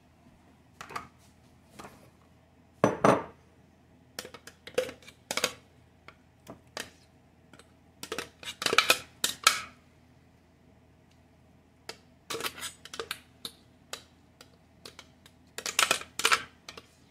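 Spoon scraping and knocking against a plastic blender jar as ground chicharrón paste is emptied out, in irregular clusters of scrapes and clatter with several louder knocks.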